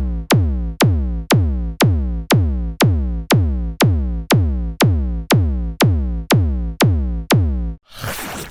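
Synthesized drum hits standing in for a cartoon level-crossing alarm: an even beat of about two hits a second, each a sharp click followed by a quickly falling tone. The beat stops about a second before the end, and a burst of noise takes over.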